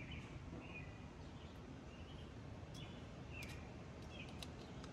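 Quiet background with a few faint, short bird chirps scattered through, and a few light clicks in the second half.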